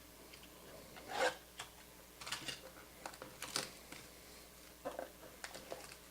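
Scattered short scrapes and rustles, five or six within a few seconds, of hands handling card packaging.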